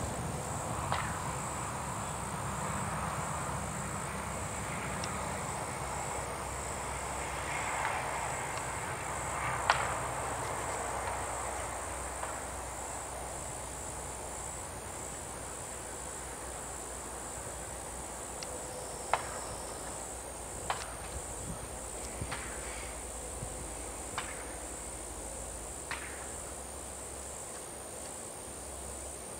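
Insects chirring in a steady high-pitched drone, with a handful of sharp, widely spaced clicks.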